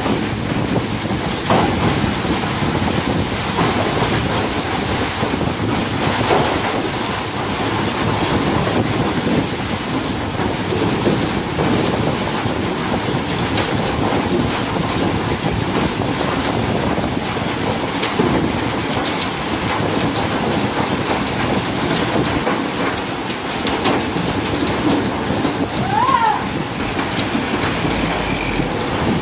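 Coal pouring from a bunker chute into a truck: a steady rushing clatter of lumps. About 26 s in there is a short squeal that bends up and down.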